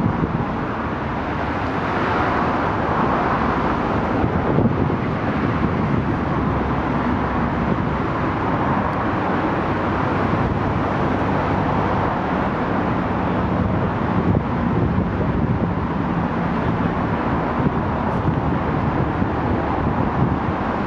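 Steady road traffic noise from cars passing on a busy road.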